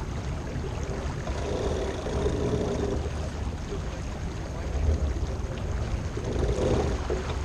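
Water rushing along the hull of a J/105 sailboat under sail, with wind noise on the microphone. The wash swells twice, about a second and a half in and again near the end.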